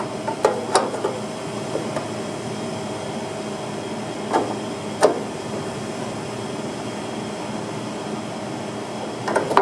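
A steady machine hum with a few short, sharp metal taps and clinks: a quick run in the first second, two more near the middle and a couple near the end.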